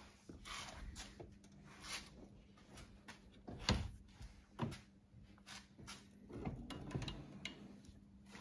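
Faint handling and movement noise: scattered clicks, knocks and rustles, with two louder thumps in the middle, over a faint steady low hum.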